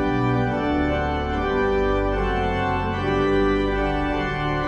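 Organ music playing slow, sustained chords that change every second or so, as a short intro jingle.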